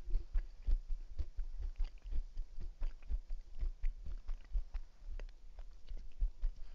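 A man chewing peanuts: irregular small crunches and mouth clicks.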